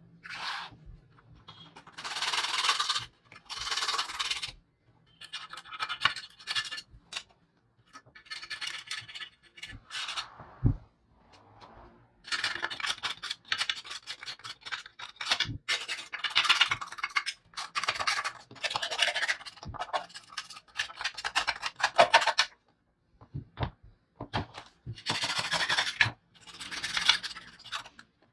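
Metal scraper blade scraping old paint and rust off a small metal scale part, in repeated strokes of about half a second to a second with short pauses between them.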